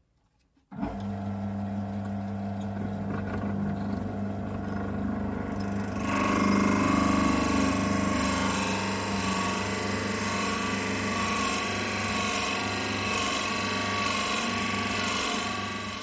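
Wood lathe motor starting about a second in and running with a steady hum. From about six seconds in, a 32 mm Forstner bit in the tailstock drill chuck bores into the spinning wooden blank, adding a louder cutting hiss and whine over the motor.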